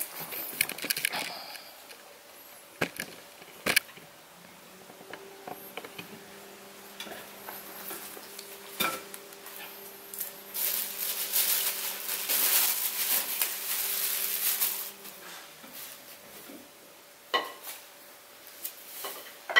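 Scattered knocks and clinks of a wooden stool and studio gear being handled, with a few seconds of rustling in the middle and a faint steady hum beneath it.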